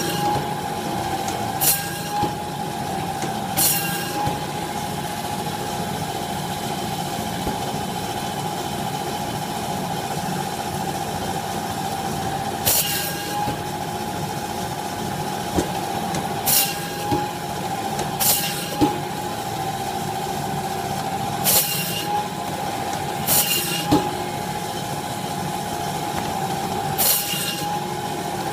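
Meat band saw running with a steady whine, its blade rasping briefly each time it cuts through the bone of a beef short loin to slice off a thin T-bone or porterhouse steak, about nine cuts at uneven intervals.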